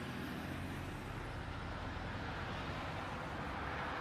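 Steady vehicle road noise picked up by a dashcam: a low engine hum under an even hiss of tyres on a wet road.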